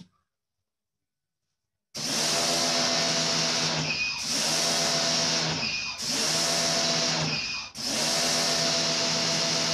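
A pressure washer starts about two seconds in and runs steadily, its pump humming under a loud spray hiss as it blasts unexposed photo emulsion out of a silkscreen. The sound sags and picks up again three times, about every two seconds.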